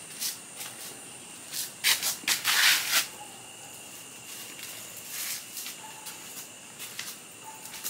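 Soft rustling and scuffing with scattered light clicks, and a louder rubbing hiss about two and a half seconds in, over a faint steady high-pitched whine.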